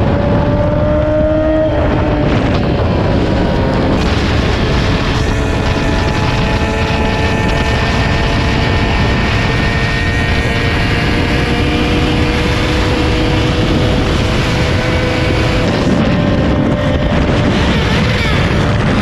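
Sport motorcycle engine running while riding, under heavy wind rush. The engine note climbs for the first couple of seconds, drops at a gear change, then holds fairly steady.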